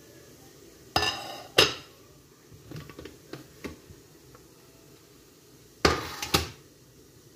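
Metal cookware clanking: two sharp, ringing knocks about a second in, a few light clicks, then two more ringing knocks near the end.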